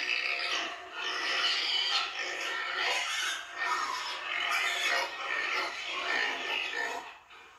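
A group of young pigs grunting and squealing, on and off.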